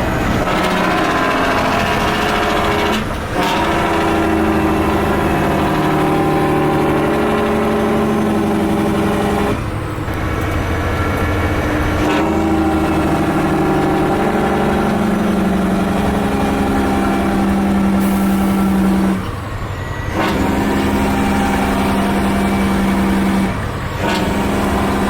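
Semi truck's diesel engine with its Jake brake (compression-release engine brake) engaged, a loud steady drone as the engine slows the truck, broken by four short dips in level.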